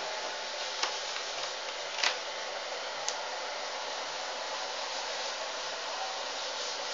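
Steady rushing hiss of an electric air blower running, with three short sharp clicks in the first few seconds, about a second apart.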